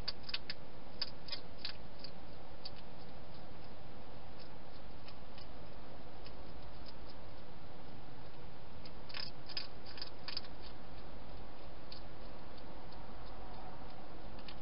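Wild hedgehog crunching dry food: quick runs of sharp, crisp clicks at the start and again a little past the middle, with fainter single clicks between, over a steady background hiss.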